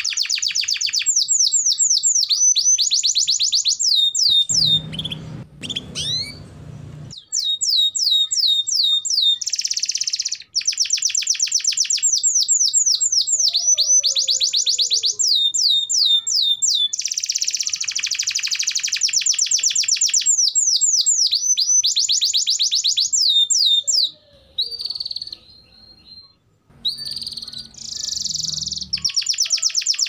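Domestic canary singing long rolls of fast, high trills, each a quick run of downward-sweeping notes. The song breaks off briefly about five seconds in and again past twenty-four seconds.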